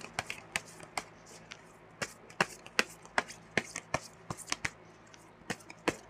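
Tarot cards being handled and shuffled by hand: a run of light, irregular clicks and slaps, roughly three or four a second.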